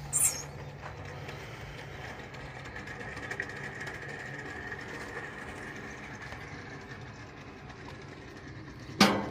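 Plastic rollers of a long roller slide rattling and rumbling steadily as a child rides down it. A loud sudden sound breaks in near the end.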